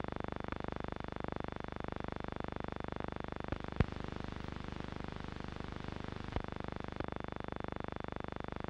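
Hum and rapid even buzz of an old film soundtrack with no narration or music on it, broken by a few sharp crackles and pops, the loudest about four seconds in.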